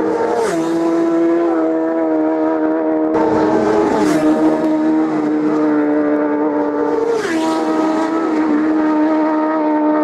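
Racing motorcycles passing flat out at about 150 mph, one after another: a high-revving engine note that drops sharply in pitch three times, once about every three and a half seconds, as each bike goes by.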